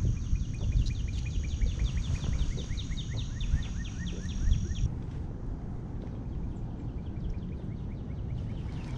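Wind buffeting the microphone with a rough, low rumble. Over it a bird sings a fast trill of short falling notes, about five a second, alongside a steady high-pitched tone; both break off about halfway through, after which fainter chirps continue.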